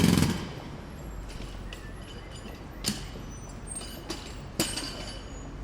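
Close-up jackhammer pounding with rapid, even strokes cuts off just after the start. A quieter background follows, broken by three sharp knocks or clanks, one about three seconds in and two about a second and a half later.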